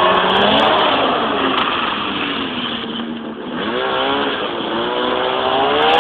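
Snowmobile engine running, its pitch falling to a low steady note over the first couple of seconds, then climbing again as it revs up in the second half.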